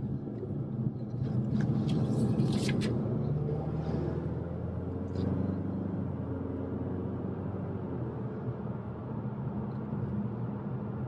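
The 2020 Ford Mustang EcoBoost's turbocharged four-cylinder engine and road noise, heard from inside the cabin while driving. The engine note gets louder over the first couple of seconds, then settles into a steadier cruise.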